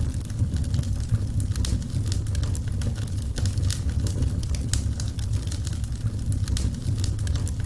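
Wood fire crackling, with many sharp, irregular pops and snaps over a steady low rumble.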